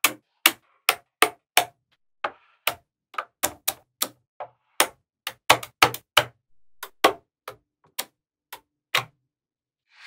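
Small magnetic balls clicking sharply as ball-built wall pieces are snapped onto the magnetic-ball model: some two dozen separate clicks, two or three a second, coming closest together around the middle.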